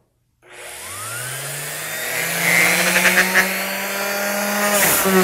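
Porter-Cable random orbital sander switched on and spinning up, its pitch rising for about a second and a half and then holding at full speed. The pad is free-spinning at high RPM because the clutch belt that should limit it is missing. Scraping on the wood comes in about two and a half seconds in, with a brief knock near the end.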